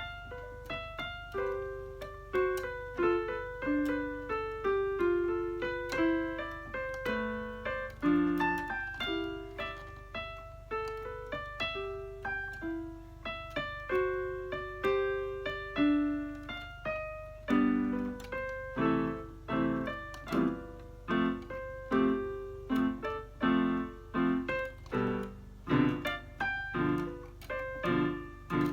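Electronic keyboard played in a piano voice: a single-note melody at first, then from about halfway, chords struck in a steady rhythm with bass notes. A steady low hum runs underneath.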